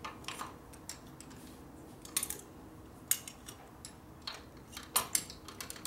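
Wrenches clicking and clinking against the pushrod adjuster nut of a 1949 Harley-Davidson panhead as the valve clearance is set, a few separate sharp metal taps spread across several seconds.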